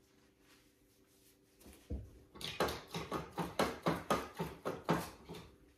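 Hog-bristle paintbrush tapping in a small tray of odorless mineral spirits to rinse out the paint. A single knock comes about two seconds in, then a quick run of taps, about four a second, for some three seconds.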